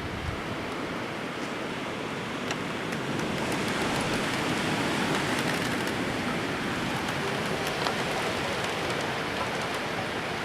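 Blizzard wind blowing with driven snow: a steady rushing that swells in a gust around the middle, with a few faint ticks.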